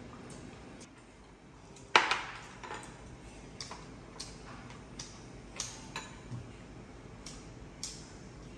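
Tableware clinking as people eat: spoons and chopsticks tapping ceramic bowls, plates and a glass-topped table. One sharp clink about two seconds in is the loudest, followed by lighter, scattered clinks and taps.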